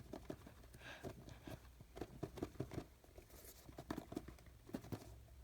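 Faint, irregular small clicks and taps of hands handling a box lid and the items inside it.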